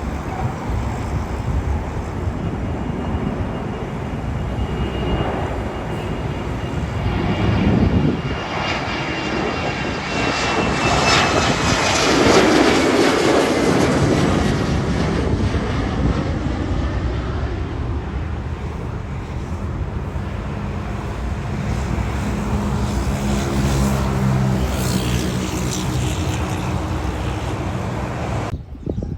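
Airliner passing close by. Its engine noise swells to a peak about twelve seconds in, with a high whine falling in pitch as it goes past, then settles into a lower drone. The sound cuts off abruptly near the end.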